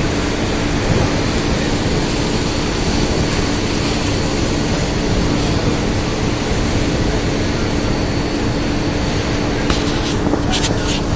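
Boat engine running steadily at sea: a constant low hum under a loud, even rushing noise, with a few short clicks near the end.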